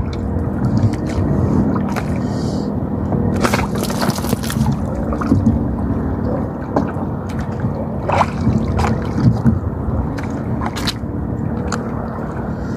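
Choppy sea water sloshing and splashing around a swimmer at the surface, with scattered short splashes and knocks as a speared cuttlefish is pulled off the spear and bagged.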